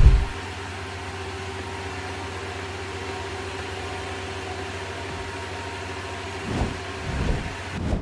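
Engine of a topping-spreader machine running steadily, a low hum with a steady whine above it. There is a loud low thump right at the start and a few softer low thuds near the end.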